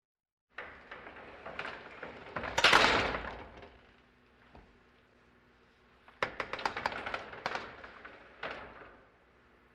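Elevator sounds: a sliding rush that swells and fades about two to three seconds in, then a quick run of clicks and rattles from about six to eight and a half seconds in, over a faint steady hum.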